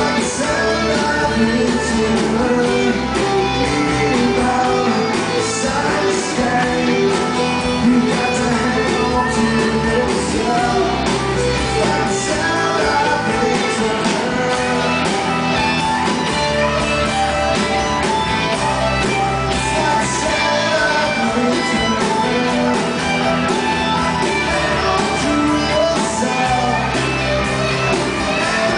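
A rock band playing live in a club hall: guitars and bass with singing, loud and continuous, in the closing part of the song.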